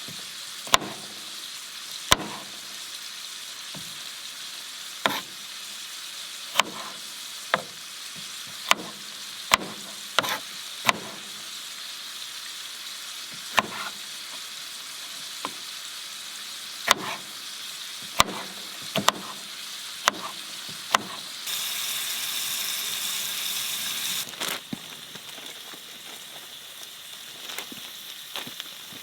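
Food sizzling steadily in a frying pan, with scattered sharp knocks of a knife on a cutting board as vegetables are chopped. About 21 seconds in, the sizzle turns louder for about three seconds.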